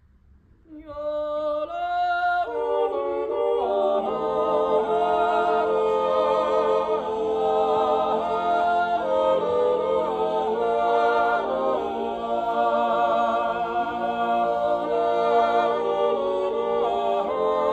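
Six-man male group singing an Appenzell Zäuerli, a wordless natural yodel, unaccompanied. After a brief pause, a single voice starts about a second in, and the other voices join over the next few seconds, holding chords under the yodelling lead.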